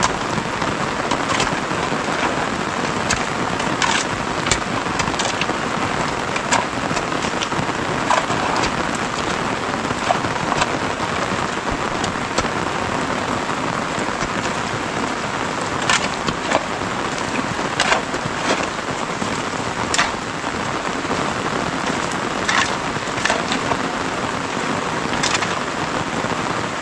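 Steady rain, with irregular scrapes and clinks of shovels digging into wet mud and stones.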